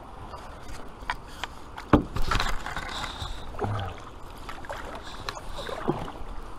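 Wooden canoe paddle strokes: the blade splashing and dripping in the water, with several knocks of the paddle against the canoe, the loudest a sharp knock about two seconds in.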